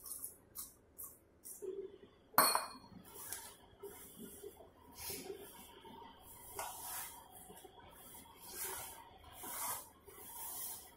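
Water trickling from a steel tumbler into dough in a steel basin, then a sharp metal clink about two and a half seconds in. After that, hands knead gram-flour dough against the steel basin: repeated wet rubs and slaps with a faint metallic ring from the basin.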